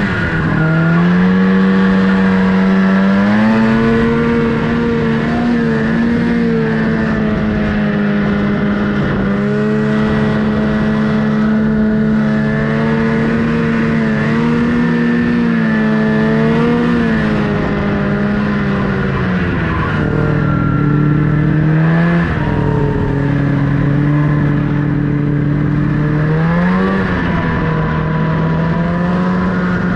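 Snowmobile engine running under load, its pitch rising and falling as the throttle is worked, with sharper drops in pitch about 20 seconds in and a rise near the end.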